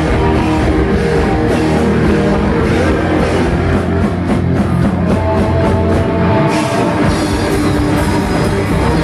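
Live rock band playing loud, with electric guitar, bass guitar and a drum kit, heard through the club's PA.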